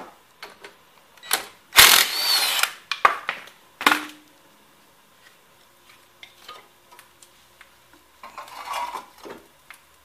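Ryobi impact wrench hammering for a little under a second about two seconds in, spinning out a 14 mm brake caliper guide-pin bolt. A few clicks and a short metallic clank follow near four seconds, and metal parts scrape near the end as the caliper is handled.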